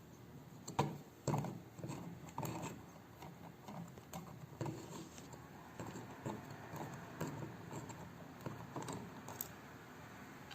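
Clicks and scrapes of a flathead screwdriver working at an electrical outlet's cover plate, a few sharp knocks in the first seconds followed by lighter ticking and scraping of metal on plastic.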